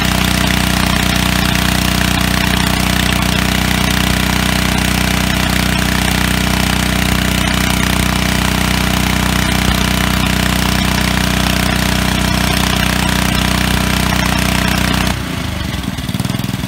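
Pressure washer running steadily, its Clog Hog jetter nozzle blasting water to wash a PVC pipe through the soil under a concrete sidewalk: a low, even motor hum under a dense spray hiss. Near the end the hiss drops off sharply and the hum changes.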